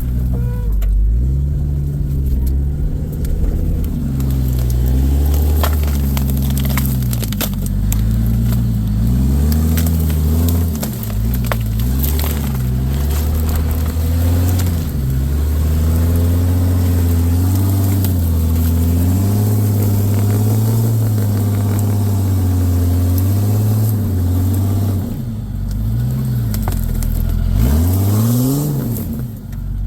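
Off-road vehicle engine revving up and down under load as it crawls over rough trail, its pitch rising and falling again and again, with scattered crackles and scrapes.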